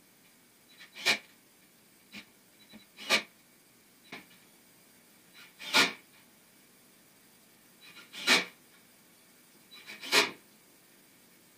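Cordless drill-driver driving screws into an OSB panel on a wooden box, in five short bursts about two seconds apart.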